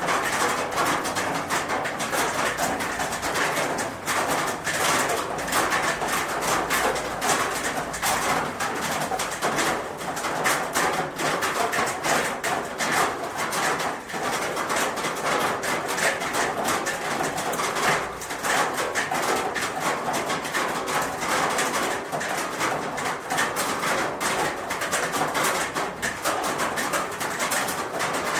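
Steady rain falling on a roof: a dense patter of drops striking the roof surface, without let-up.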